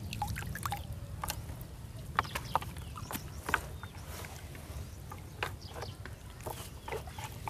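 Pond water splashing and dripping in small irregular spurts as a wet trammel net is lifted by hand out of the water, over a steady low rumble.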